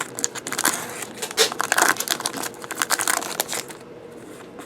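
Trading-card packs and cards being handled: quick crinkling and rustling with many small clicks, dying down near the end.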